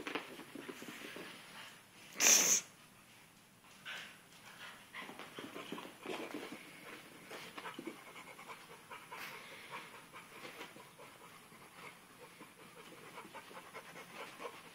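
A pit bull puppy breathing hard and scuffling with a sock on carpet, with one short, loud, sharp noise about two seconds in.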